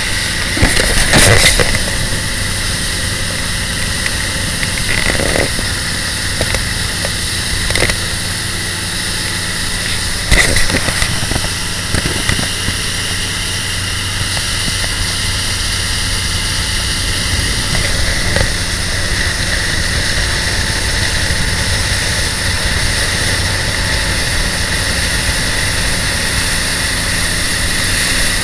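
Bayliner motorboat under way at cruising speed: its engine running steadily under a constant rush of wind and water. A few sharp knocks break through, the loudest about a second in and about ten seconds in.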